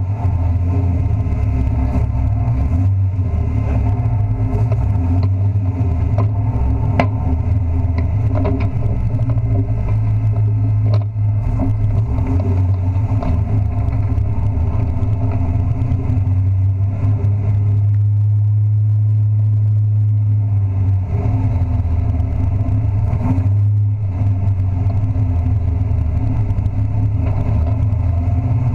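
Race truck's engine running steadily at a low, even pitch, heard from inside the caged cab, with a few light rattles.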